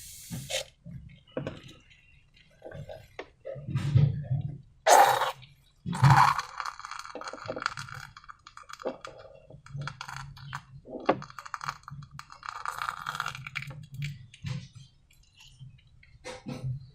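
Clear slime being squished and worked by hand: irregular wet clicks, small pops and squelches, the loudest coming about four to six seconds in.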